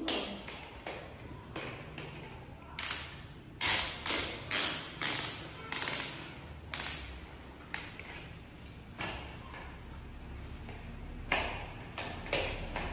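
Twist mop worked in a plastic basin of water: a run of sharp splashing swishes, about two a second, a few seconds in, then the wet mop head wiping across a tiled floor in fainter strokes.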